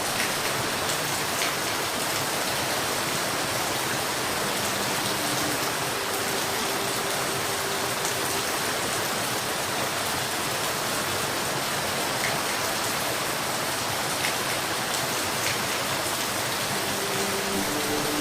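Steady, even rain hiss with a few faint drop ticks.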